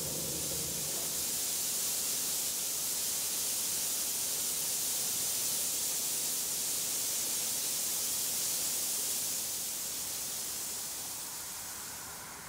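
Water spray hissing steadily, fading away near the end.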